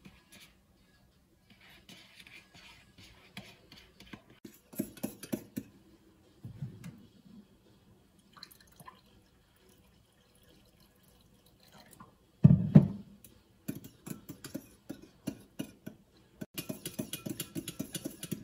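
Yogurt and water poured into a glass bowl from a cup and a filter jug, with scattered clinks and a thump about halfway through. Near the end a metal spoon stirs the thinned yogurt, clinking quickly against the glass bowl.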